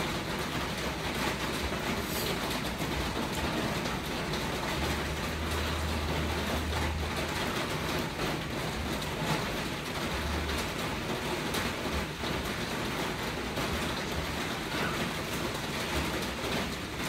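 Steady rain falling, an even hiss of rainfall.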